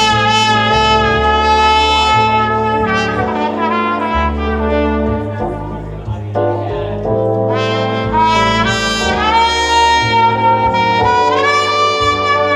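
Instrumental break in a jazz ballad: a trumpet solo of long held notes, swelling and stepping upward, over a bass line and band backing.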